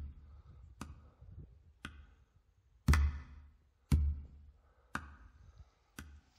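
Slow footsteps on wet, muddy ground, about one step a second, each a dull thud with a sharp click.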